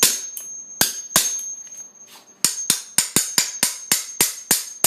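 A hammer striking a metal tool again and again: about a dozen sharp, ringing blows, with a short pause near the middle and a quicker run of blows toward the end.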